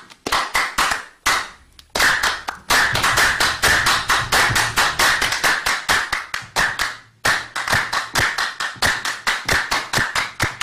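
Group of people clapping their hands in a fast, even beat of about five or six claps a second, with a short break about seven seconds in. They are clapping out the haddadi rhythm of Marrakech's traditional music, which is performed without voice.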